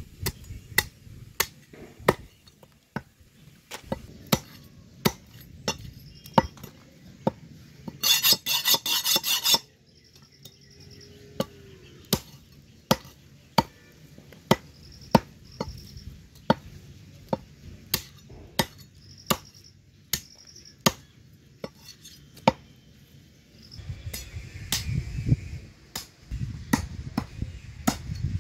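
Cleaver chopping goat meat and bone on a wooden log chopping block: sharp single strokes, roughly one to two a second. About eight seconds in, a loud rattling noise lasts about a second and a half, and a low rumble runs under the chopping near the end.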